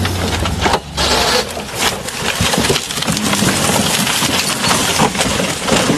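Off-road 4x4 working over rough ground: loud rough noise full of knocks, crunches and scraping, with a brief drop about a second in.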